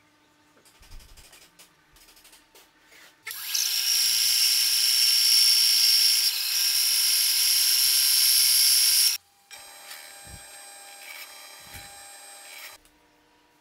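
A benchtop bandsaw running and cutting through a wooden block, starting about three seconds in and stopping abruptly about nine seconds in; this is the loudest sound. Then a drill press runs more quietly as its bit bores into plywood, stopping shortly before the end.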